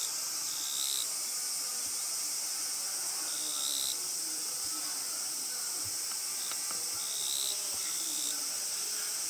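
Chorus of evening cicadas (higurashi) and other insects: a steady high-pitched drone, with short calls of about half a second recurring several times at irregular spacing.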